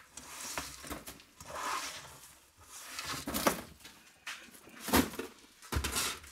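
Pieces of mixed copper scrap wire being swept off a workbench into a plastic crate, rattling in several short bursts, with a sharp knock about five seconds in and a dull thud near the end as the crate is handled.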